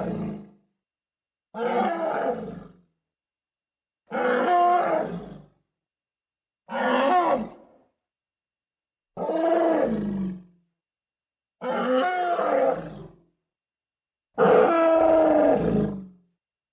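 A series of separate elephant trumpet and roar sound effects, six calls of about a second each with a clean silence between them, each ending in a falling pitch.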